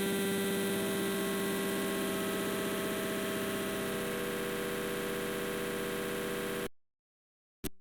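Harsh electronic buzzing drone made of many steady tones held at once, with a rapid rattling texture. It cuts off abruptly about a second before the end, and a short click follows.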